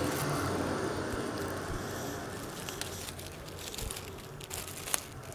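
Outdoor street ambience from a phone video played back over the room's speakers: a steady rush of wind and distant traffic, easing after the first couple of seconds, with a few scattered sharp clicks.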